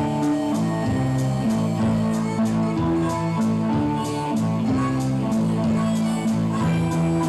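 Live band music: held, droning pitched notes with a low line that changes every half second or so, over a steady beat that ticks about twice a second.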